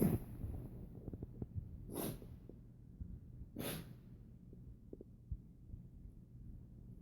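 Puggle (pug–beagle cross) breathing noisily through its nose and throat: two short, airy breaths about a second and a half apart, the first about two seconds in, with faint clicks between.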